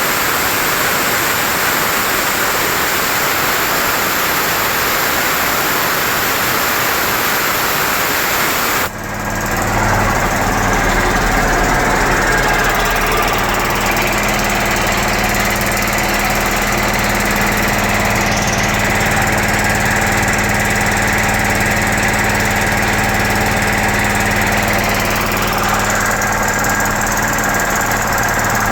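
A steady hiss for about nine seconds, then the 5 HP United air compressor's electric motor and pump start up and run with a steady hum.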